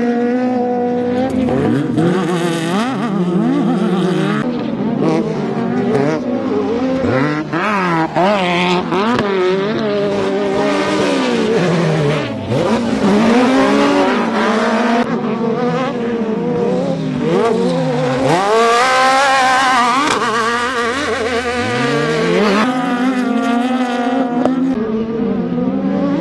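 Engines of off-road race trucks revving hard and racing past on a dirt track, several at once, their pitch sweeping up and dropping over and over as they accelerate, shift and lift for corners, with a loose spray of dirt from the tyres.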